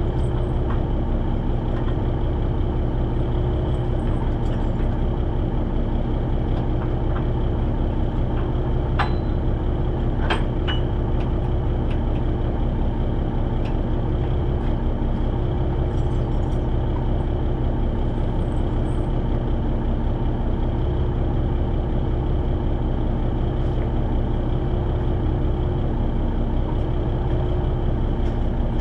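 Kenworth log truck's diesel engine idling steadily, with a couple of sharp metallic clicks about nine and ten seconds in.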